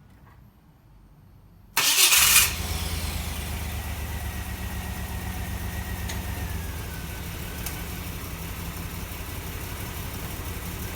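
2000 Chevrolet Blazer's 4.3-litre V6 cranking and catching about two seconds in, loudest at the start, then settling into a steady idle. This is its first start after a fresh oil change.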